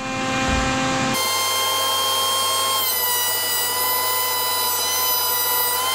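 Benchtop jointer's electric motor running with a steady high whine; about three seconds in the pitch drops slightly as the cutterhead takes up the load of a mahogany board fed edge-first across it.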